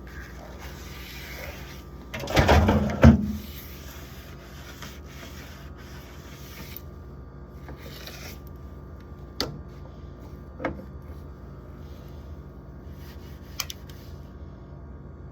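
Rubbing and scraping from wiping down the inside of a fridge. A loud clatter of items being moved comes about two seconds in, and three light knocks follow later.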